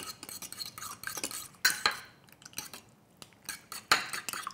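Metal spoon stirring beaten eggs and chicken broth in a ttukbaegi earthenware bowl: irregular clinks and scrapes of the spoon against the bowl, with a sharper clink near the end.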